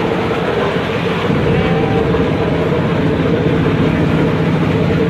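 An engine running steadily, a continuous low drone with a steady hum.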